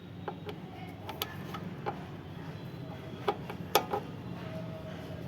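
Several light, sharp clicks and taps as a 4-pin load cell cable connector is handled and fitted onto the weighing scale indicator's socket, the sharpest a little past the middle, over a low steady hum.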